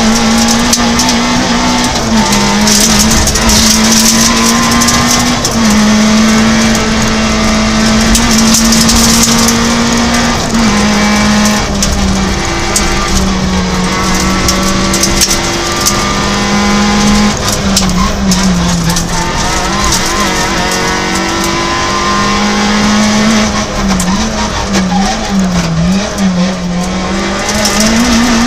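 Peugeot 106 rally car's engine at high revs, heard from inside the cabin over loud road and tyre noise. The engine note drops and climbs back several times, then rises and falls quickly near the end.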